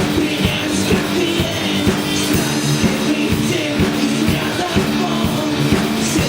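Live rock band playing, with electric guitars, bass and a steady drum beat; a sung vocal is faintly present.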